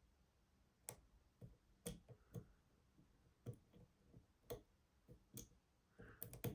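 Faint, irregular metallic clicks of a lock pick working the pins of a Union 6-pin oval pin-tumbler cylinder held under light tension: probing pin by pin for the one still binding after the core has dropped into a deep false set.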